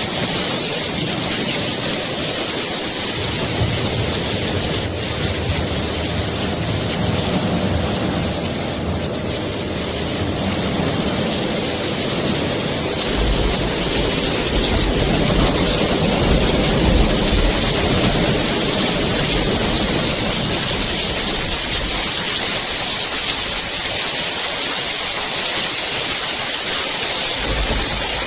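Heavy rain falling steadily as a dense, even hiss. A deep, low rumble of thunder swells in through the middle stretch and fades out again.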